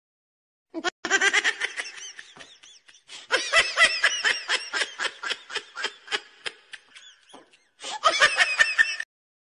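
Laughter sound effect: a person laughing in rapid rhythmic 'ha-ha' pulses, starting about a second in, trailing off, then breaking out again near the end.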